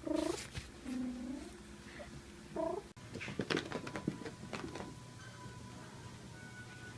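A cat meowing: three short calls in the first three seconds. After that come a few scattered clicks and taps.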